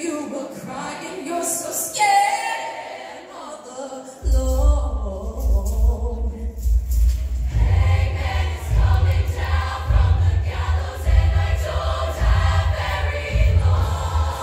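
Show choir singing in harmony with its live band. About four seconds in, a heavy bass beat comes in under the voices.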